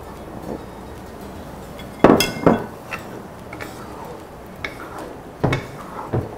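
A loud ringing clatter of dishware about two seconds in, then a wooden spatula knocking and scraping in a wok several times as it gently pushes diced tofu around.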